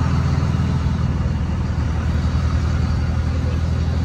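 Pickup truck engine running with a steady, deep rumble as the truck drives past towing a trailer.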